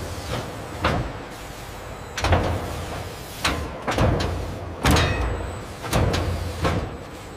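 Industrial machinery at work: about seven heavy thuds and clanks at irregular intervals, roughly one a second, over a steady low mechanical hum.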